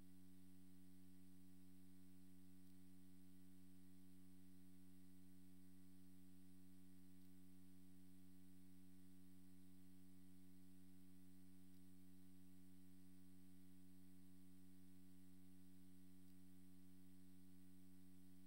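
Near silence: a steady electrical hum with a faint hiss, unchanging throughout.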